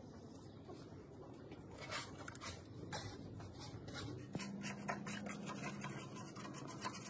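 Open-end spanner clicking and scraping on the nuts of a cast-iron valve block as they are tightened down, with a few sharper metal knocks as the spanner is moved from nut to nut.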